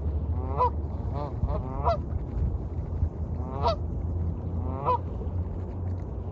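A duck or goose giving about six short, nasal honking calls, three of them in a quick run near the start and two more spaced out later, over a steady low rumble of waves.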